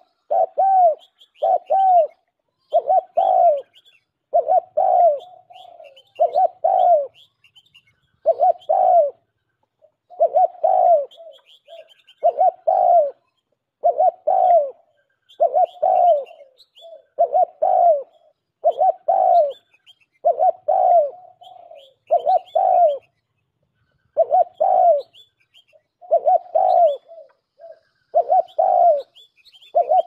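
Pigeon cooing: short arched coos repeated in pairs and short runs, about one to two a second, with faint high chirps above them.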